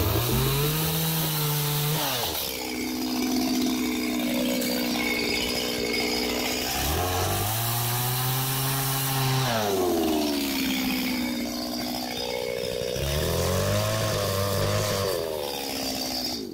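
Two-stroke chainsaw running at high revs while bucking pine logs into short lengths, its pitch sagging and rising again several times as the chain works through the wood. It cuts off suddenly at the end.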